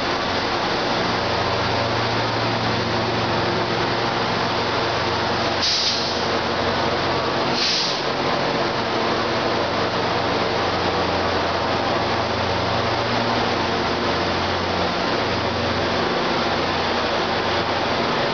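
NJ Transit diesel locomotive's engine running steadily alongside the platform, a constant drone with low hum. Two short hisses break in, about two seconds apart, partway through.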